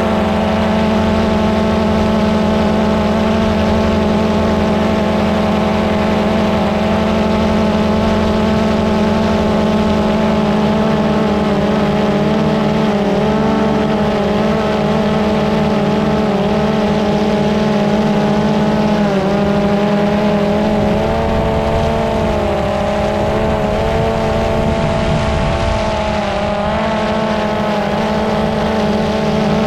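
Drone's electric motors and propellers whining steadily, loud and close, with a stack of steady tones whose pitch dips and wavers a little in the second half.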